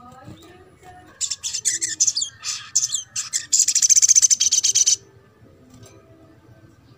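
Olive-backed sunbird (sogok ontong) singing: a rapid run of high, sharp chirps starting about a second in, ending in a fast, even trill that stops abruptly about five seconds in.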